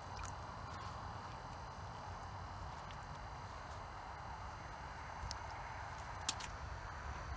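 Faint steady outdoor background on the ice with a low wind rumble on the microphone, and one sharp tap about six seconds in.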